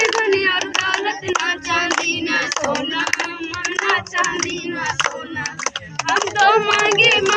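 A group of women and children singing a devotional song together, clapping their hands along with it.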